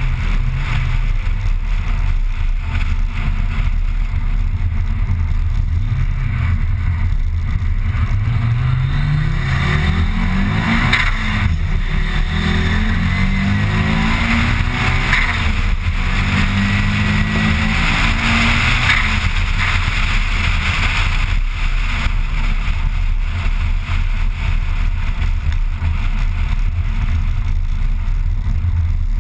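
Car engine and road noise heard from inside the cabin while driving fast, the engine pitch climbing under acceleration about a third of the way in and again around the middle.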